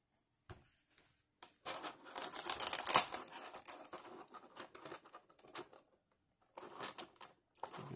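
Thin clear plastic blister packaging crinkling and crackling as it is flexed and pulled by hand: a dense run of crackles in the first half, scattered clicks after it, and a shorter burst near the end.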